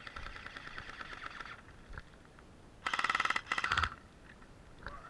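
Airsoft electric gun firing two short full-auto bursts about three seconds in, a rapid even rattle of the gearbox cycling, with a fainter stretch of rapid firing in the first second and a half.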